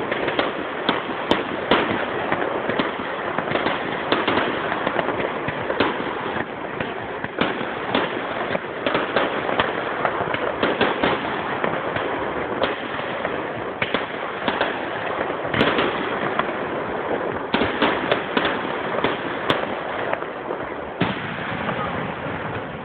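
Fireworks display with many shells bursting at once: a dense, continuous crackle with frequent sharp bangs standing out every second or so, easing slightly near the end.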